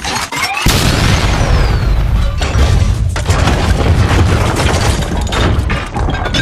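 Film sound effects of a giant robot crashing through a stone wall: a sudden heavy boom a little under a second in, then a long, deep rumble of shattering stone and metal debris that dies down near the end.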